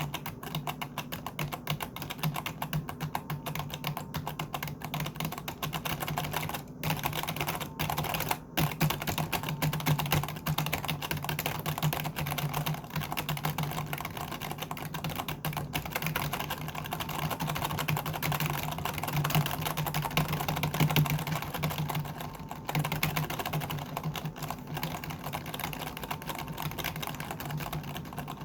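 Continuous fast typing on a computer keyboard, a dense run of key clicks with a few short pauses, over a low steady hum.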